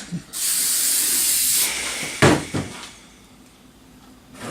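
Aerosol spray can of clear lacquer spraying one steady hiss for about a second and a half, followed by a short thump about two seconds in.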